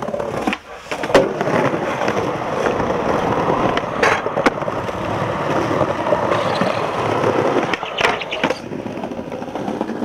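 Skateboard wheels rolling over brick paving, with sharp clacks of the board striking the ground. The loudest clack comes about a second in, and others come around four and eight seconds in.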